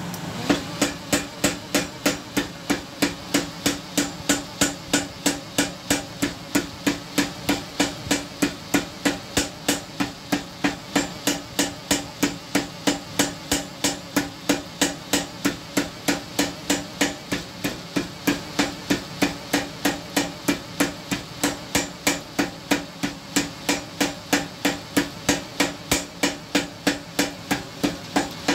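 Hammer blows on hot iron at the anvil, forging a tenon, struck at a steady pace of about two blows a second, each with a short metallic ring.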